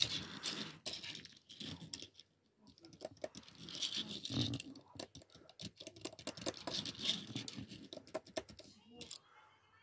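Irregular light taps, clicks and rustling of fingers handling a small Tomica die-cast toy car on a tabletop, pressing down on its body to work the spring suspension.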